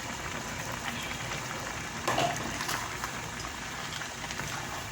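Pot of okra soup simmering on the stove, a steady bubbling hiss with small ticks, and a short louder sound about two seconds in.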